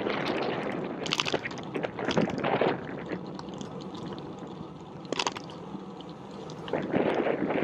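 Wind rushing over the microphone in uneven gusts, dropping back for a few seconds in the middle before picking up again near the end.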